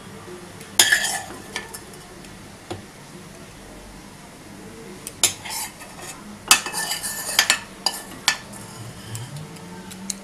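A metal spoon clinking and scraping against cookware as vegetable topping is spooned and spread onto a pizza base, in scattered clatters about a second in and again through the middle of the stretch.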